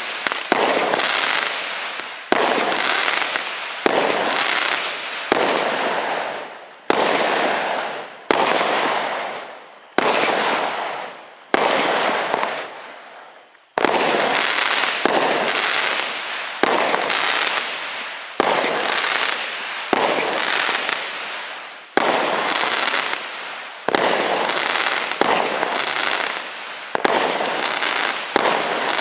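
A Cube Fireworks Rampage 25-shot barrage cake firing shot after shot. Each shot is a sharp report about one to two seconds after the last, trailing off in a fading rush of noise, with one longer pause a little before the midpoint.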